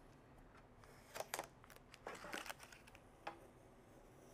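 Faint crinkling and rustling of plastic transport tape being peeled off a sewing machine, a few short crinkles scattered through from about a second in.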